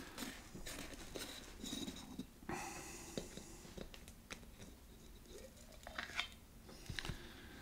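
Wooden stir stick prying the metal lid off a can of contact cement: faint scraping and small clicks, with a few sharper clicks in the second half as the lid comes free and is handled.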